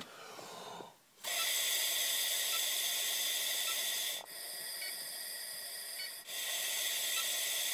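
A man blowing a long, steady breath sample through the blow tube of a car ignition interlock breathalyzer, an even airy hiss. It starts about a second in, eases for a couple of seconds in the middle, then comes back at full strength.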